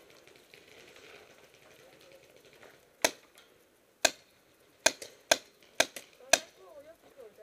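Paintball fire: six sharp cracks in about three and a half seconds, irregularly spaced, starting about three seconds in.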